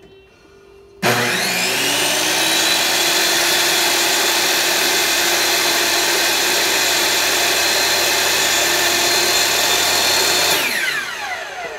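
Table saw switched on about a second in, its motor and blade spinning up to a steady high whine while cutting a divider groove in a white panel. Near the end it is switched off and winds down with a falling whine.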